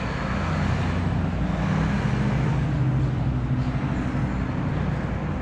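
A motor vehicle engine running steadily with a low hum, with road or traffic noise around it.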